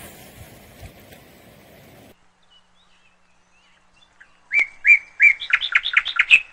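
Low outdoor background noise that cuts off abruptly about two seconds in. Near the end comes a quick series of high, bird-like chirps: three short level notes, then a faster run of notes.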